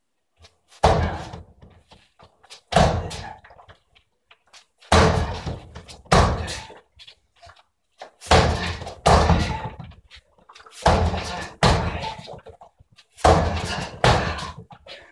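Roundhouse kicks from alternating legs hitting the ribs of a freestanding body-opponent training dummy, about ten heavy thuds. Each dies away quickly, and the later kicks land in quick pairs.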